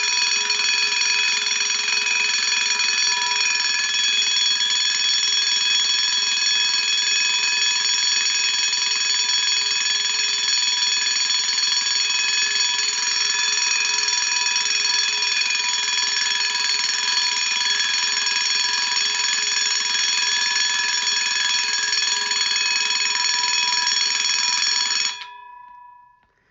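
Spring-wound (wind-up) Vanguard Protection System V-2 heat detector bell ringing continuously and steadily, then stopping near the end.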